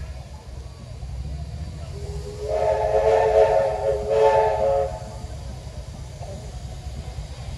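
Steam locomotive whistle sounding one blast of about three seconds: one tone first, then several tones sounding together with a hiss of steam. A steady low rumble runs under it.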